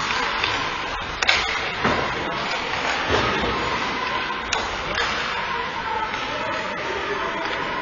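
Ice hockey play: skates scraping on the ice with sticks and puck clacking, including sharp knocks about a second in and again about four and a half seconds in.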